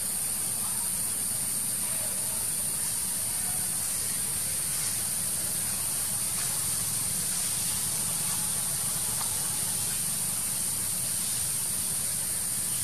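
Steady high-pitched hiss over a low rumble.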